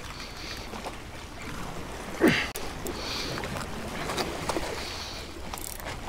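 Seawater washing and lapping against jetty rocks, with wind on the microphone. About two seconds in, a short, loud call slides steeply down in pitch.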